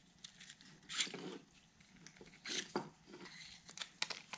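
Handling noises from a white 3D-printed plastic stalk being fitted over the blinker wiring: a few soft rubs and small knocks, scattered and irregular.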